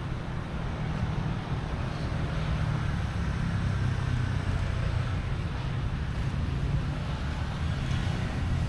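Steady low rumble of nearby road traffic.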